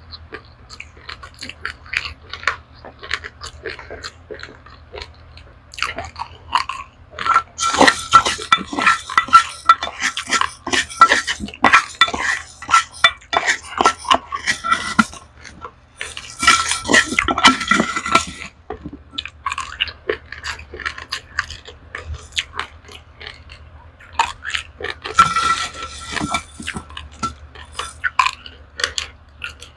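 Close-up crunching and chewing of dry-roasted raw rice grains, a dense crackle of small cracks that comes in loud spells of several seconds with quieter chewing between.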